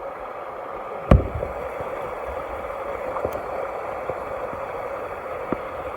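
Creek water running steadily over rocks, with one sharp knock about a second in.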